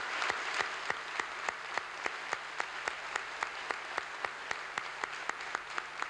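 Audience of conference delegates applauding, the clapping falling into a steady unison beat of about three to four claps a second over the general applause.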